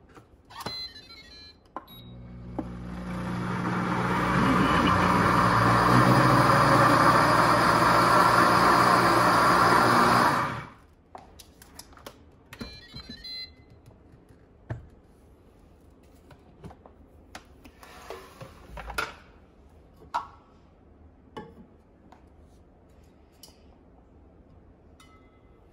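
Countertop blender blending a smoothie: the motor spins up over a few seconds, runs steadily, then stops abruptly about ten seconds in. Afterwards come light clicks and knocks as the jar is lifted off the base and handled.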